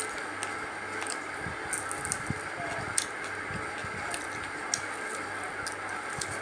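A person eating biryani: small scattered clicks of chewing and handling the food, over a steady background hiss and low hum.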